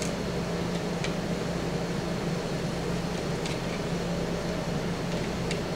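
A steady low hum of room noise, with a few faint light clicks from a small screwdriver turning screws out of a plastic battery-charger housing.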